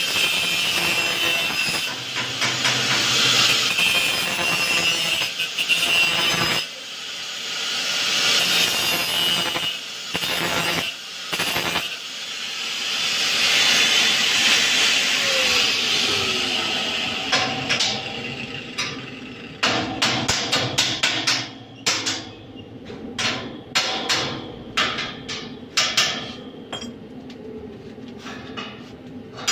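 Stick arc welder's arc sizzling and crackling steadily on steel grill bars, with two short breaks, dying away about two-thirds of the way in. Then a run of sharp, irregular knocks of a hammer on the steel.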